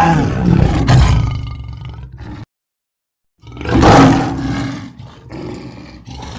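Spinosaurus roar sound effect: a roar cuts off about two and a half seconds in, and after a second of silence a second roar starts, loudest at its onset and then trailing off.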